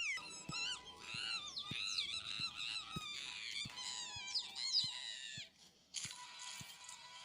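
High-pitched, squeaky cartoon character voice chattering and squealing in wordless bursts, its pitch bending up and down, for about five seconds. A steadier, denser sound comes in about six seconds in.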